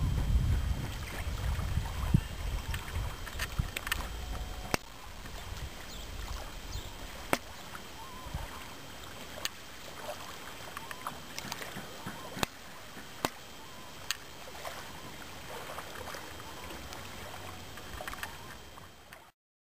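Wind rumbling on the microphone for the first few seconds, then a soft steady hiss of open-air ambience with about a dozen sharp clicks scattered through it. The sound cuts off suddenly near the end.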